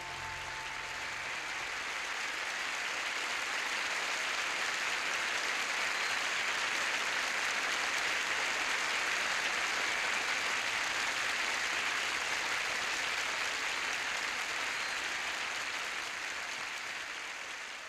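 Audience applause that swells, holds, and tapers off near the end. The last sustained note of the song fades out in the first second or two.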